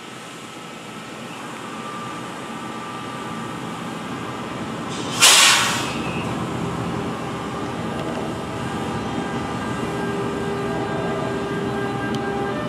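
NJ Transit electric locomotive standing with a steady mechanical hum, then a short, loud hiss of air about five seconds in. After that a few thin whining electrical tones come in as the locomotive starts to pull away.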